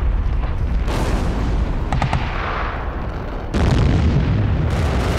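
Heavy explosions of a bombardment, one after another. Each starts suddenly and rumbles on into the next: about a second in, about three and a half seconds in, and again near the end.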